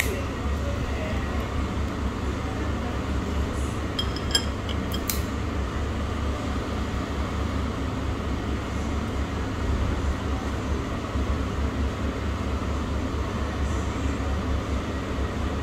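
Steady low rumble of background noise, with a few short, light clinks, like glass or cutlery touching, about four to five seconds in.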